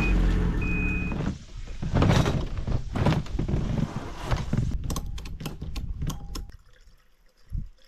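Ski-Doo snowmobile engine idling steadily for about the first second. It is followed by knocks and rustling from a plastic freight sled with wooden rails being handled, and a run of sharp clicks as a fastener on the sled is worked.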